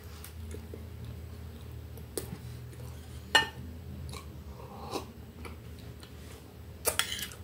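A person eating cake, chewing with the mouth close to the microphone, with a few sharp clicks from a metal fork and a plastic cup, over a steady low hum.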